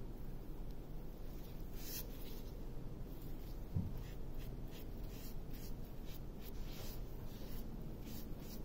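Cloth and rubber-gloved hands rubbing oil finish onto a sample made of glued playing cards: short, faint scratchy wiping strokes, with one low bump about four seconds in.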